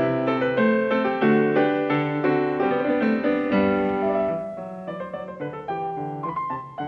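Piano music with flowing, quickly changing notes that thin out and drop in level about four seconds in.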